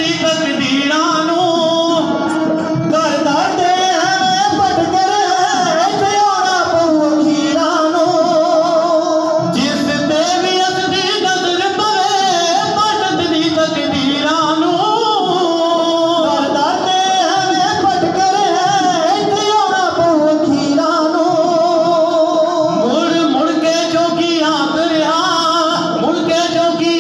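A dhadi jatha performing: men singing in the Punjabi dhadi style, their voices gliding and ornamenting over a sustained accompaniment of the sarangi, with the small hourglass dhadd drum.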